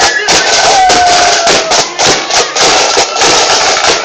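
A band playing loud, distorted music: a dense wash of crashing cymbals and drum strikes, with a held note standing out for about a second.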